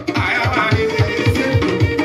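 Upbeat dance music with a fast, steady low beat, about four to five beats a second, under a busy melody.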